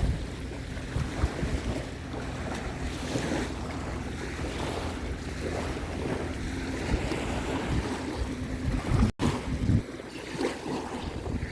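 Wind buffeting the microphone at the shore, with the steady low hum of a motorboat engine out on the water. The sound cuts out for an instant about nine seconds in.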